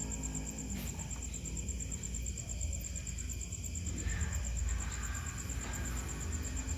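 A cricket trilling steadily in a rapid high-pitched pulse, over a low rumble, with a single click about a second in.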